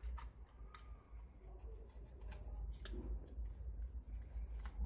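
A bag of cold-fireworks titanium powder being opened by hand: scattered small clicks and crinkles of the packaging, faint.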